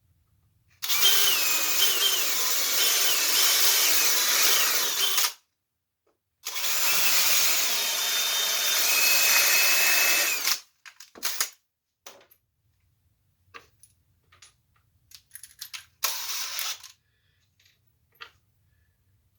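Power drill boring screw holes in wood: two runs of about four seconds each, the motor's whine shifting in pitch as the trigger is worked, then a few scattered clicks and one brief short burst.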